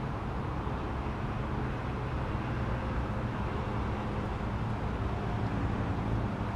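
Steady low rumble of a running vehicle.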